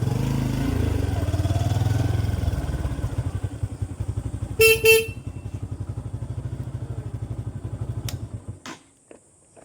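Motorcycle engine running with a steady, even exhaust beat. About halfway through, a horn gives two short honks. Near the end the engine sound stops suddenly.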